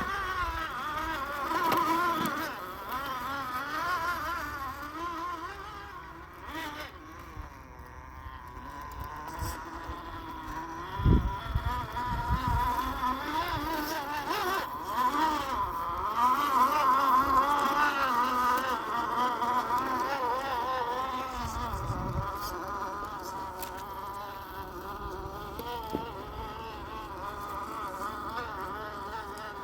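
Axial SCX10 II rock crawler's electric motor and drivetrain whining, the pitch wavering constantly as the throttle is worked. Two low thumps are heard, about eleven and twenty-two seconds in.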